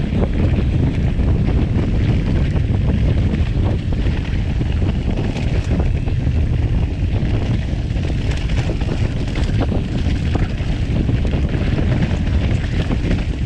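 Wind buffeting the action camera's microphone over the steady rumble of an Orbea Occam full-suspension mountain bike rolling fast on a dirt forest trail, with scattered small clicks and rattles from the bike and its tyres on the ground.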